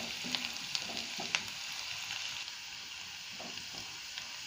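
Finely chopped ginger, garlic and green chilli sizzling in hot oil in a non-stick wok, being briefly sautéed. A slotted spatula stirring them scrapes and taps the pan in the first second and a half, with one sharper tap about 1.4 s in, and then the steady sizzle goes on alone.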